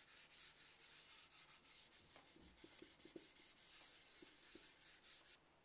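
Faint rubbing of a rag working oil finish into a wooden cabinet top by hand, a soft steady swishing with a few faint squeaks, stopping shortly before the end.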